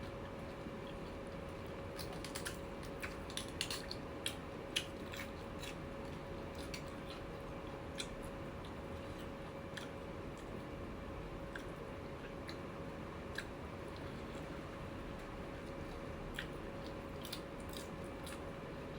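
Close-up eating sounds: a person chewing bites of laab with beef tripe and sticky rice, with scattered small clicks and crunches, over a steady low hum.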